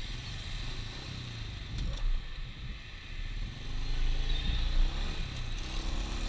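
Motorbike engines running in slow, heavy traffic, with an engine speeding up a little past the middle.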